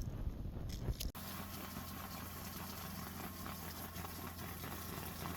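About a second of low rumbling noise with a few sharp clicks, then an abrupt cut to a steady, even motor hum like an engine idling.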